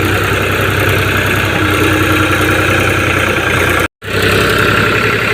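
Powertrac tractor's diesel engine running steadily, pulling a heavily loaded trolley. The sound cuts out abruptly for an instant about four seconds in, then the engine carries on.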